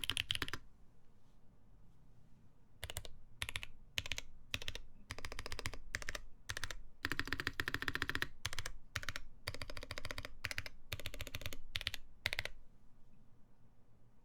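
Typing on a mechanical keyboard with lubed Boba U4T tactile switches on a polycarbonate plate: quick runs of keystrokes broken by short pauses. It stops about half a second in, resumes near three seconds, and ends about two seconds before the close.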